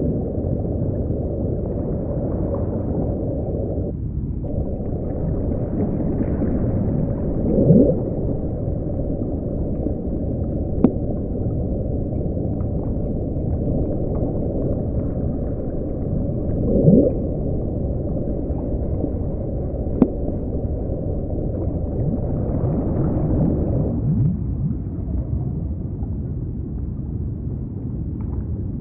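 Underwater ocean ambience: a steady low hiss and rumble, with two short rising whale-like calls about nine seconds apart and a couple of sharp clicks.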